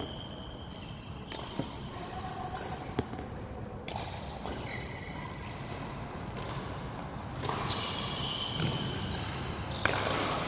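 Badminton rally on a wooden hall floor: a few sharp racket strikes on the shuttlecock and several short, high squeaks of court shoes, echoing in a large sports hall.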